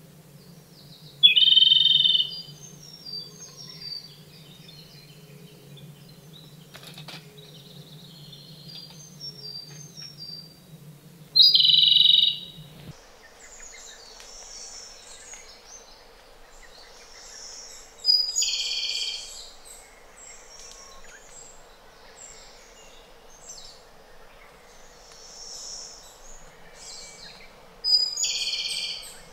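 Japanese robin (Larvivora akahige) singing: four loud trilled song phrases spaced several seconds apart, some opening with a short high note, with softer high notes in between.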